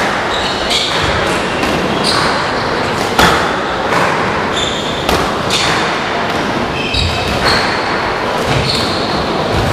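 Squash rally: the ball hitting rackets and the walls about once a second, with short high squeaks of court shoes on the wooden floor over steady hall noise.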